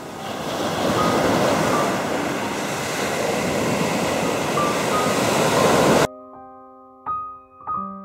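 Sea waves breaking and washing up a sandy beach, a steady loud rush of surf that cuts off abruptly about six seconds in. A piano then starts playing slow, ringing notes near the end.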